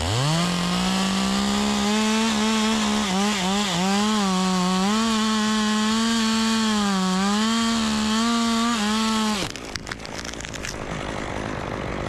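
Stihl two-stroke chainsaw revved to full throttle and cutting through a northern red oak limb. Its high engine note wavers and sags repeatedly as the chain bites into the wood, then drops away suddenly about nine and a half seconds in, followed by a few clicks and rustles.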